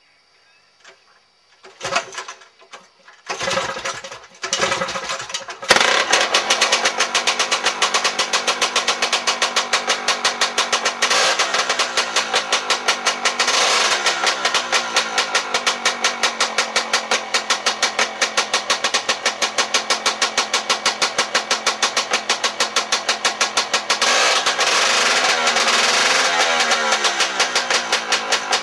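Fichtel & Sachs Stamo 202 stationary engine, a single-cylinder two-stroke, being started: a few brief coughs over the first few seconds, then it catches about six seconds in and runs steadily with a fast, even firing beat. Near the end its speed drops and comes back up.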